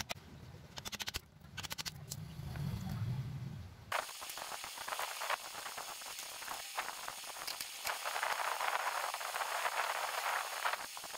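Homemade small-transformer welding machine: a low hum with a few clicks about a second in, then from about four seconds in the steady crackling and spitting of the welding arc as it is tested.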